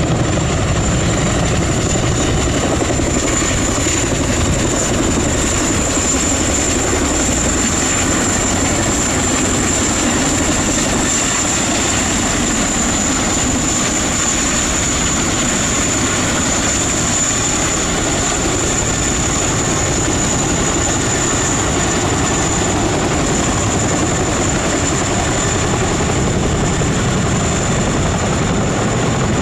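RAF Boeing Chinook tandem-rotor helicopter flying low and coming in to a hover, its twin rotors beating with blade slap over a steady high whine from its two turboshaft engines. The noise stays loud and even.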